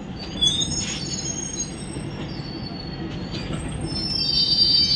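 Diesel multiple unit train running on the track, heard from on board, with a steady low rumble and high-pitched wheel squeals that come and go, loudest near the end.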